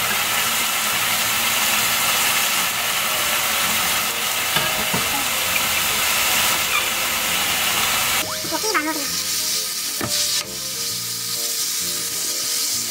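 Sliced pork sizzling as it fries in oil in a frying pan, with a couple of sharp knocks; the sizzle grows fainter about eight seconds in.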